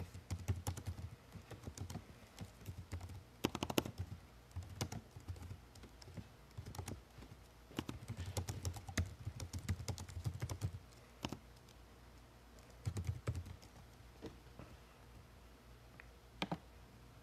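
Typing: irregular quick taps and clicks in bursts, with dull thumps close to the microphone, thinning out to a few single taps near the end.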